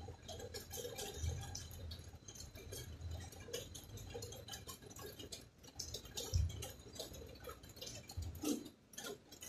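Faint, irregular small clicks and soft thumps of someone chewing dalandan segments while fingers pull at the fruit.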